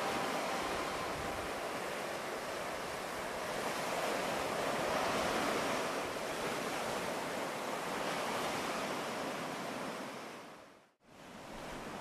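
Ocean waves washing ashore: a steady rush of surf that swells about halfway through, then fades out to silence about a second before the end and comes back in.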